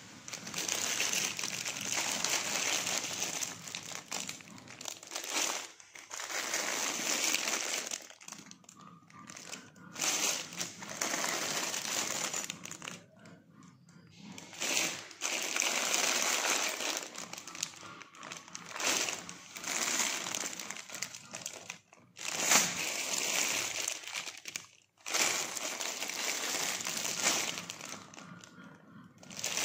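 Clear plastic bags crinkling and rustling as they are handled, in irregular stretches broken by short pauses.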